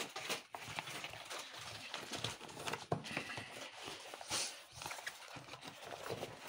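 Nylon fabric cover of a snow tube rustling and scraping as a folded rubber car inner tube is pushed into it by hand, with irregular soft knocks.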